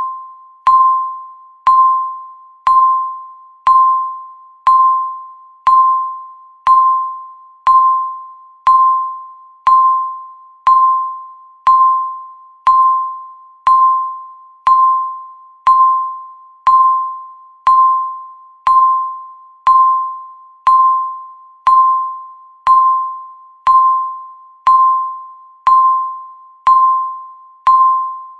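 Countdown timer beeping once a second: a short electronic beep at a single pitch that starts sharply and fades quickly, repeating evenly.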